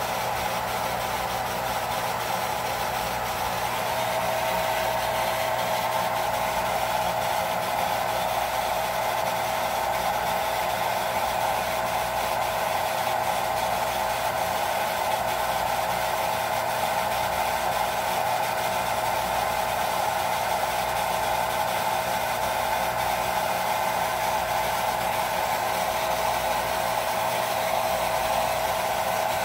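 Well jet pump motor running steadily, bringing the pressure tank up to pressure: a constant whine over an even hum, with no clicking or cutting in and out.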